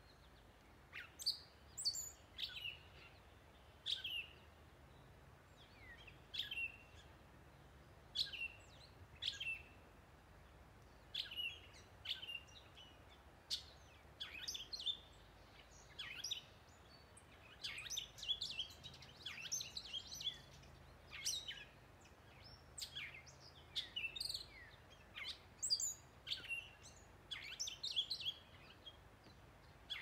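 Northern mockingbird singing: a long run of short phrases of sharp, mostly downward-sweeping whistled notes, coming in quick clusters about every second.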